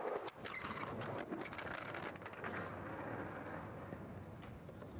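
Skateboard wheels rolling on concrete with a steady rumble, with a few sharp knocks from the board, near the start and again near the end.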